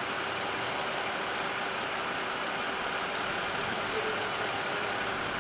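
Steady running noise of vehicle engines idling, even throughout with a faint steady hum.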